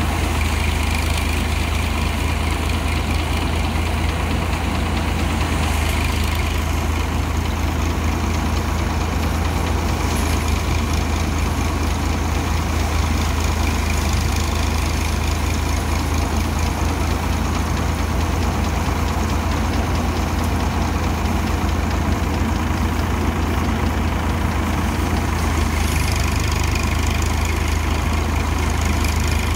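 A paddy threshing machine and the engine driving it, running steadily: an unchanging low drone with a noisy mechanical spread above it.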